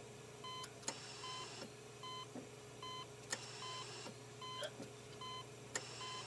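A faint series of short electronic beeps repeating every half second to a second, with a sharp click about every two and a half seconds, over a steady low hum.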